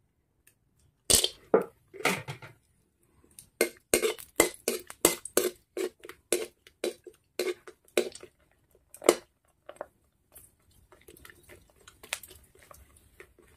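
Puris frying in oil in a steel kadai over a wood fire, stirred with a metal ladle: a run of sharp, irregular clicks and pops, several a second, then a faint hiss near the end.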